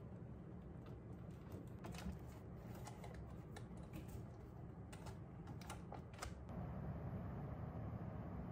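Light, irregular clicks and taps of fingers, plastic adhesive hooks and a picture frame against a wallpapered wall as the frame is hung. The tapping stops after about six seconds, leaving a faint steady hiss.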